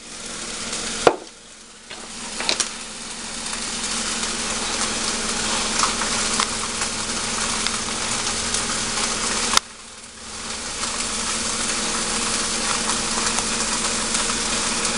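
Sauce ingredients sizzling steadily in a hot frying pan. A sharp click comes about a second in and another near ten seconds, each followed by a brief lull before the sizzle builds back up.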